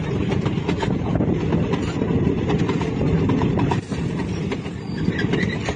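Indian Railways passenger coaches rolling past at close range: a steady rumble of wheels on the track, with a stream of clicks as the wheels cross rail joints.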